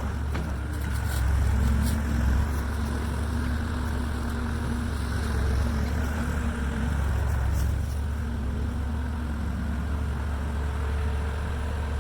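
An engine running steadily, its pitch rising a little twice as it works harder, with a few short knocks.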